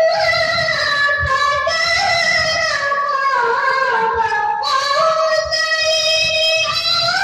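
A child qari reciting the Quran in a high voice, drawing out long ornamented notes that slide and waver, with a new phrase beginning a little past halfway.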